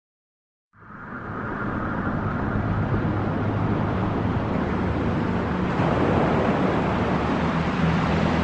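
Electronic trance-style background music fading in after a moment of silence: a swelling wash of noise over sustained low synth notes.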